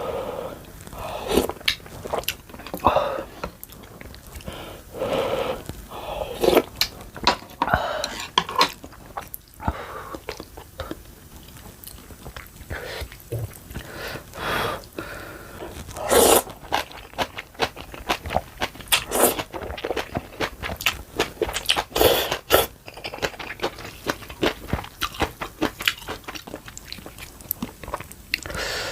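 Close-miked eating sounds: chewing and biting on ramen and kimchi, with many small wet clicks and a few louder, sharper bursts about midway through.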